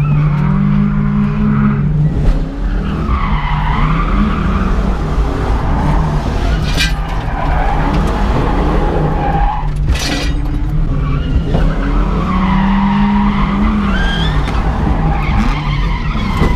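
1995 Ford Mustang GT drifting, heard from inside the cabin: the V8 revs up and down while the tyres squeal through long slides. A few sharp knocks come from loose jackstands clanking behind the seat.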